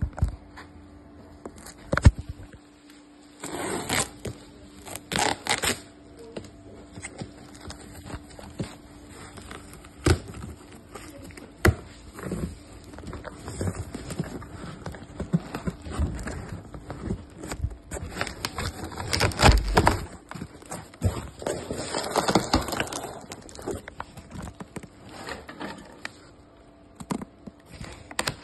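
Cardboard boxes being handled and rummaged through: irregular scraping, rustling and sharp knocks of cardboard, mixed with handling noise on the phone's microphone.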